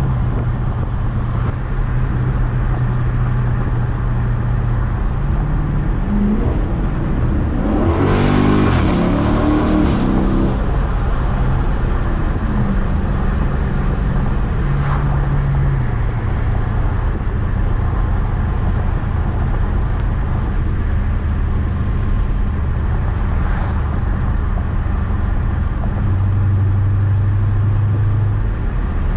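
Dodge Charger 392's 6.4-litre HEMI V8 exhaust heard from inside the cabin, droning steadily at cruise. About seven seconds in it accelerates with a climbing engine note and a loud rasp, then drops back to a steady cruise.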